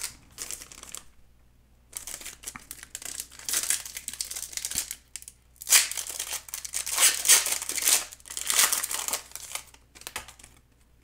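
Foil trading-card pack being opened by hand, the wrapper crinkling in two long stretches of crackling noise, the second louder.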